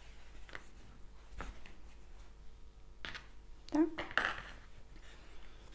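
Hand-crocheting sounds: a crochet hook working thick t-shirt yarn gives soft clicks and rustles, then a cluster of louder clinks and rustling about three to four seconds in.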